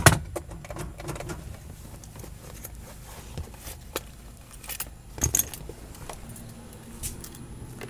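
Handling noise in a car cabin: a loud knock at the start, then scattered light clicks and rattles, loudest about five seconds in, over a steady low hum.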